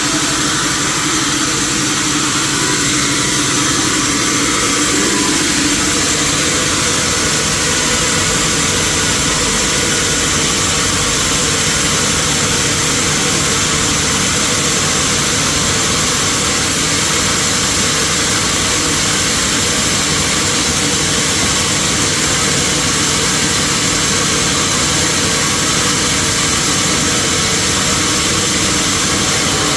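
Sawmill machinery running steadily, a loud, even mechanical drone that holds without change.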